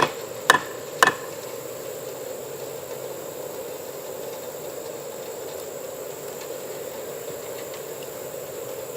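Three sharp knocks of a 3D-printed plastic hammer striking, about half a second apart in the first second, each with a brief ring, followed by a steady background hum.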